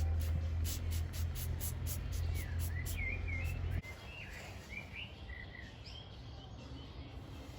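Birds chirping in short up-and-down calls, over a steady low hum that cuts off suddenly about four seconds in; a quick run of evenly spaced faint ticks comes in the first two seconds.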